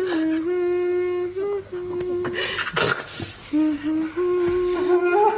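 A voice humming a slow melody in long held notes, with a short hiss of breath or noise near the middle.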